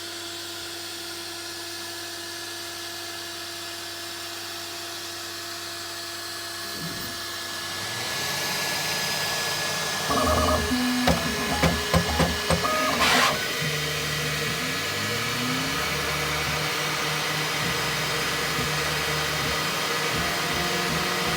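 Bambu Lab 3D printer running. First a steady fan and motor hum; from about ten seconds in, the stepper motors whine in short notes that jump from pitch to pitch as the print head moves, then settle into steady motor tones.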